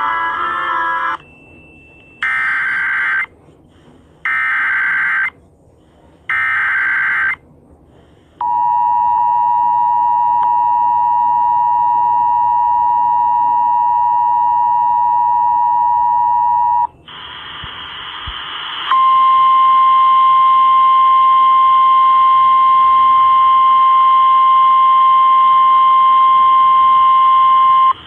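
Emergency Alert System activation on a radio broadcast for a flash flood warning. Three one-second bursts of screechy SAME header data come first, then the two-tone EAS attention signal held for about eight seconds. After a burst of hiss, a single steady tone sounds over static for the last nine seconds.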